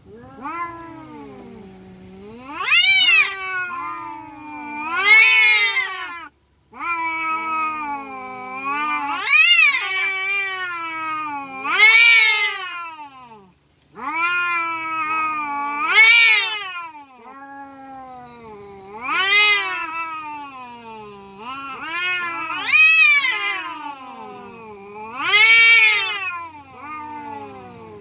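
Two domestic cats yowling at each other in a standoff before a fight: long wavering threat howls that rise to a high, loud peak every two to three seconds and sink back to a low moan, with two short breaks, about six and fourteen seconds in.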